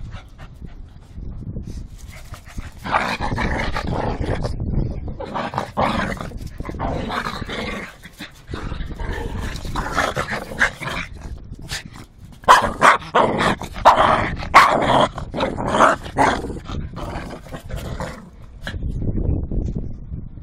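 Small fluffy dogs growling and barking excitedly close to the microphone, with a run of sharper barks in the middle.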